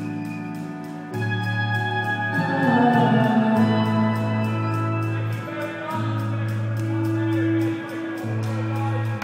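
Live band music: long held bass notes that change every few seconds under a melody, swelling loudest about three seconds in.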